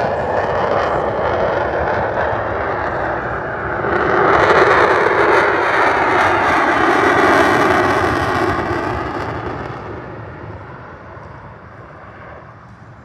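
F-22 Raptor's twin F119 jet engines roaring as the fighter flies past, the noise swelling about four seconds in and then fading away over the last few seconds.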